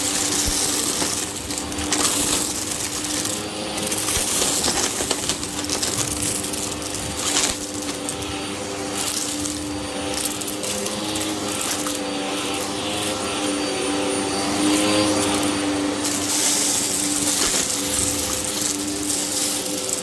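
Hoover vacuum cleaner running on a rug: a steady motor hum under a loud hiss that swells and fades with the strokes, with crackling as it sucks up crunchy debris.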